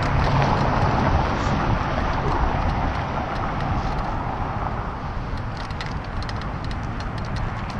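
Riding noise from a road bicycle crossing a brick street onto a concrete sidewalk: steady wind rush on the camera microphone over tyre rumble, with a run of light ticks in the second half.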